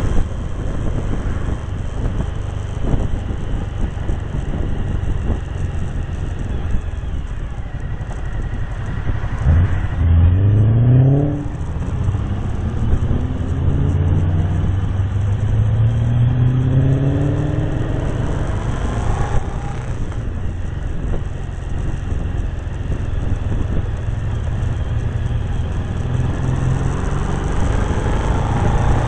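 Cagiva Navigator motorcycle's V-twin engine running under way, with wind noise on the microphone. About ten seconds in the engine note rises sharply, then climbs again more slowly a second or two later as it accelerates through the next gear.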